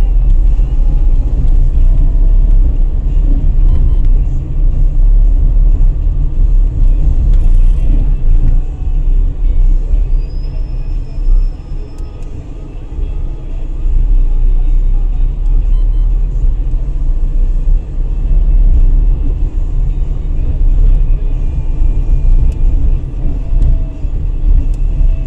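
Car driving slowly along a street, heard from inside: a loud, steady low rumble from the road and engine that eases briefly about halfway through, with music from the car radio playing underneath.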